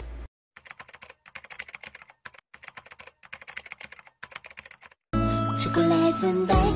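Computer keyboard typing: a quick, irregular run of key clicks lasting about four seconds. About five seconds in, music starts abruptly.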